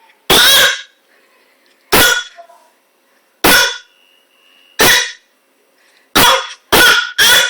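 A baby repeatedly making short, loud shouts, seven in all, coming quicker near the end.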